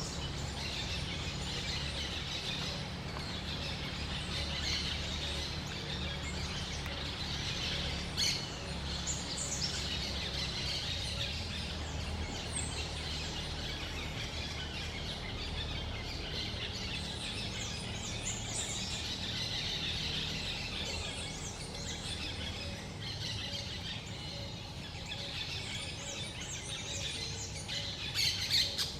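Parakeets chirping and chattering continuously, with a couple of sharper calls about eight seconds in and near the end, over a steady low background rumble.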